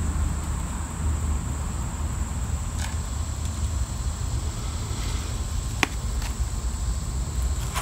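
Outdoor background of a steady high insect buzz over a low rumble, with a single sharp click about six seconds in.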